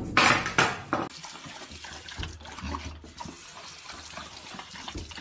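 A few loud, sudden sounds in the first second, then a water tap running steadily into a bathroom sink while a dog laps from the stream, with small splashes now and then.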